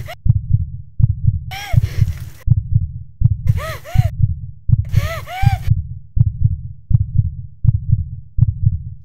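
Heartbeat sound effect, a steady low double thump a little faster than once a second. Three short bursts of eerie tones rise and fall in pitch over it.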